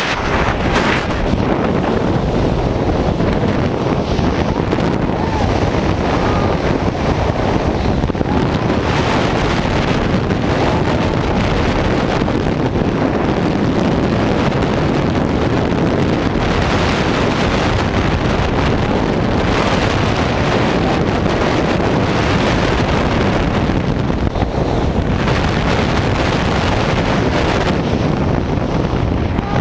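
Steady, loud wind buffeting the camera's microphone in the rushing air of a tandem skydive freefall.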